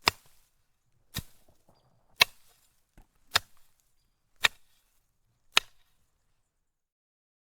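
A series of sharp strikes at a steady pace of about one a second, six loud ones with a fainter one between, stopping about six seconds in.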